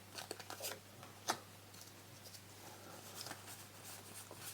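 Faint handling of trading cards: a few soft ticks and rustles, with one sharper click about a second in, over a low steady hum.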